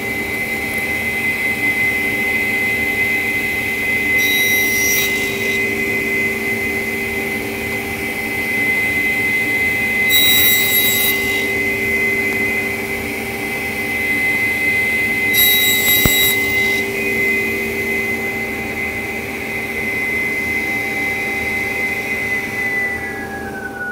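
Table saw running with a steady whine, its blade cutting through the workpiece in three passes of about a second each, five to six seconds apart. Near the end the saw is switched off and the whine falls in pitch as the blade winds down.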